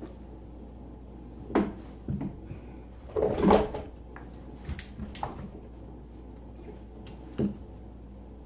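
Hollow plastic knocks and clatters as a plastic skeleton prop is shifted about on a tabletop while it is being wrapped. The loudest cluster comes about three seconds in, and there is a single knock near the end.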